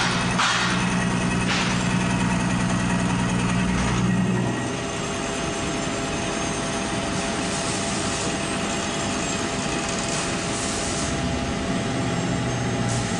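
Hartford CNC machining center running. A steady spindle-and-drive hum steps down about four and a half seconds in as the tool moves around the vise-held workpiece, with a few short hissy bursts in the first couple of seconds.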